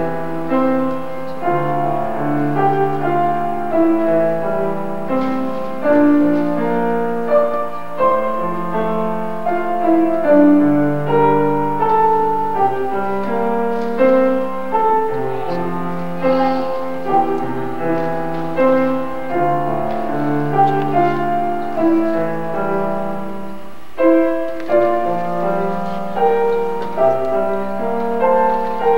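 Acoustic piano playing a piece in a steady flow of notes, with a brief pause about five seconds before the end.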